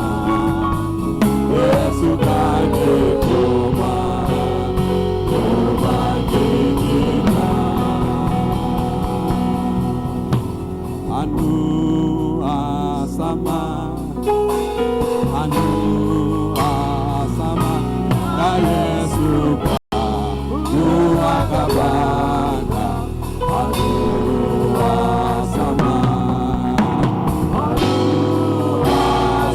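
Gospel worship singing with band accompaniment, voices over steady bass notes. The sound drops out for an instant about two-thirds of the way through.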